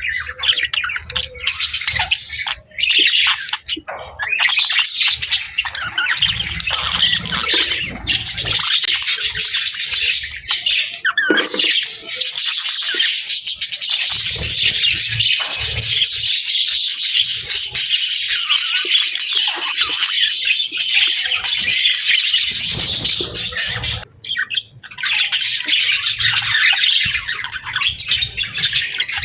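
Many small birds chirping and chattering densely and almost without a break, with squawks among the chirps. The chatter drops out briefly about 24 seconds in.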